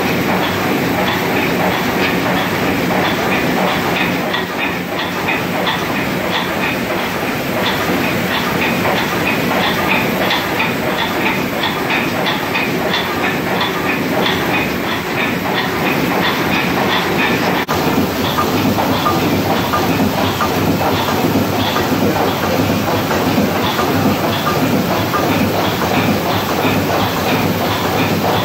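720 hp triple-expansion steam engine of a steam suction barge running steadily. Its moving rods and valve gear make a regular ticking over an even mechanical noise.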